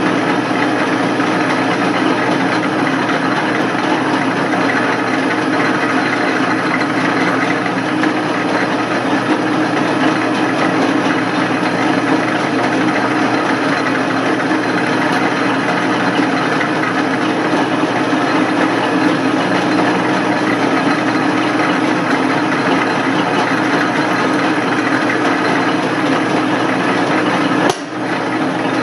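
Craftsman metal lathe running steadily while a twist drill in the tailstock chuck drills into the end of a spinning metal bar. Near the end there is one brief knock: a box falling.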